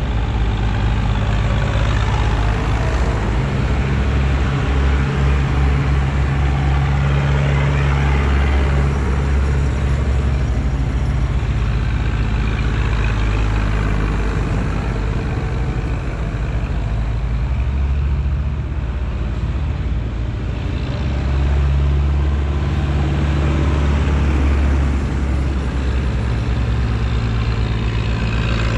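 Zetor tractors' diesel engines running as the tractors drive past one after another, a steady low engine drone that swells and fades as each one nears and goes by.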